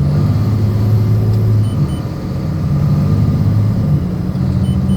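Freightliner dump truck's diesel engine running while driving, heard from inside the cab. Its note drops in the first second or so, then climbs again over the rest.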